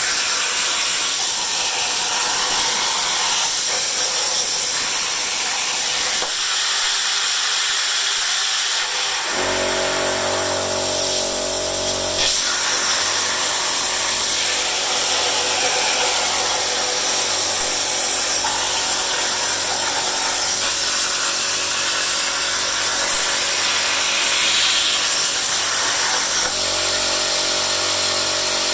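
CNC plasma cutter's torch cutting 3 mm steel plate, with a loud, steady hiss of the arc and cutting air. About nine seconds in, an air compressor starts up and runs underneath with a steady hum.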